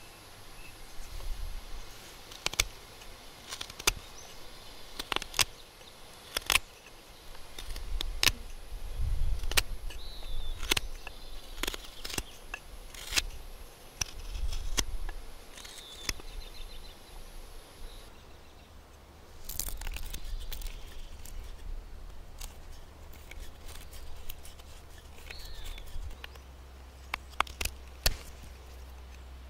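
Knife blade whittling a small piece of wood for a bow-drill fire kit: irregular sharp clicks and short scrapes as shavings are cut, spaced a second or so apart.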